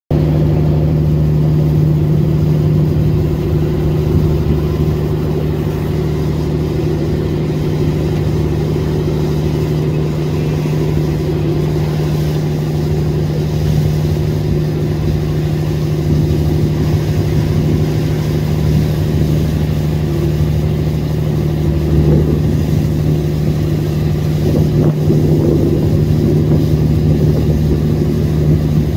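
A fishing boat's engine running steadily underway, a constant low drone, with the rush of water along the hull.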